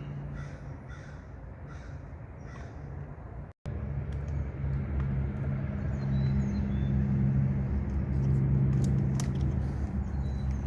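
Crows cawing faintly, then after a break a steady low hum with a few faint clicks.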